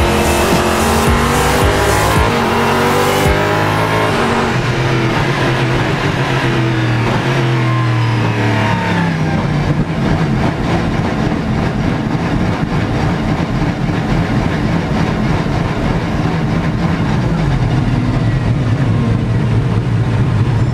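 Ligier JS P3 LMP3 car's Nissan 5.0-litre V8, heard from inside the cockpit. Its note falls in steps as the car slows and changes down, then settles into a steady low-speed running sound as it enters the pit lane.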